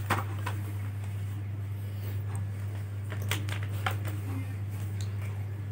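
A few faint, light clicks and taps from handling a laptop, over a steady low hum.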